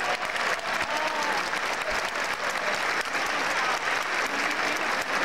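Large crowd applauding steadily, a dense patter of many hands clapping without a break, with a few faint voices calling out near the start.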